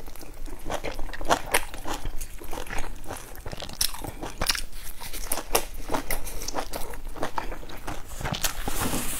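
Biting and chewing a large stuffed bun dipped in chili sauce: a run of irregular crunches and mouth clicks, several a second.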